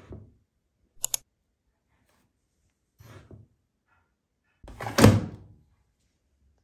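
Plastic detergent drawer of a Grundig front-loading washing machine being handled: a couple of soft knocks and two sharp clicks, then the drawer pushed shut with a loud thunk about five seconds in.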